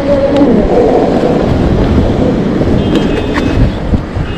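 Wind buffeting the action camera's microphone, mixed with road noise, while riding an electric bike at speed through city streets. A brief high, steady tone sounds about three seconds in.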